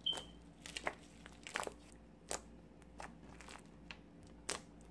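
Thick glittery slime with mixed-in beads being pressed and stretched by hand, giving scattered crackling clicks and pops, several over a few seconds.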